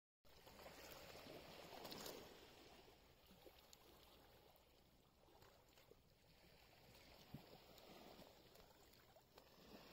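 Faint sound of calm sea water lapping and sloshing against shoreline boulders.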